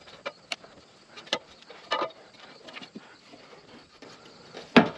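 A few separate short knocks and clicks, the loudest a sharp knock just before the end.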